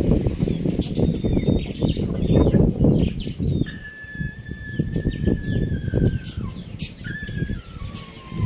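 Birds around a poultry pen: many short high chirps over an uneven low rumbling. About a third of the way in comes a long, thin, steady call held for about three seconds. A second call follows near the end and steps down in pitch.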